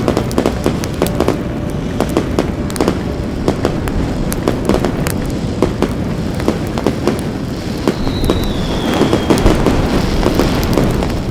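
Fireworks and firecrackers going off: dense, irregular sharp cracks and pops over a steady rumble, with a high whistle falling in pitch about eight seconds in.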